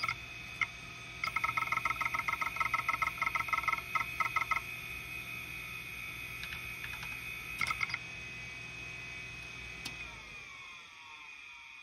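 Lid-off Kalok KL-320 MFM hard drive, damaged and running on three heads with its top arm cut off. The platters spin with a steady whine, and the head actuator makes a fast run of chirping seek clicks, roughly nine a second, for about three seconds, then a brief burst later. About ten seconds in, the motor cuts out and the drive spins down with a falling whine.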